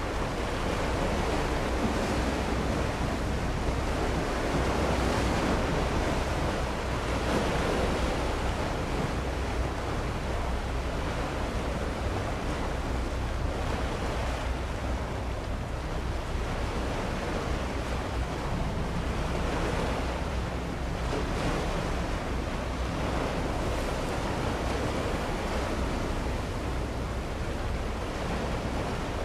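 Waves washing against the shore, swelling and easing every few seconds, with wind on the microphone and a steady low rumble underneath.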